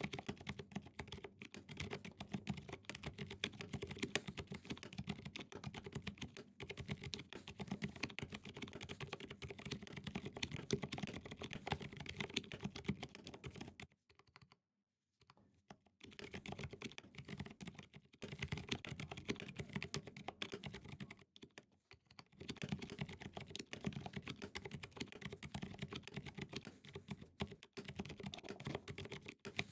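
Typing on a KBD67 Lite mechanical keyboard with lubed Zealpc Zilent v2 silent tactile switches and GMK Godspeed keycaps: a fast, continuous run of muted keystrokes. The typing stops for about two seconds midway and briefly slackens again a few seconds later.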